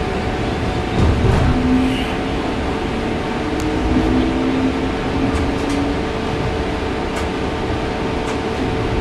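Ride noise inside a Bombardier Flexity Outlook low-floor streetcar in motion: a steady low rumble from the running gear under a constant hum, with a few short higher tones near the middle and scattered faint clicks.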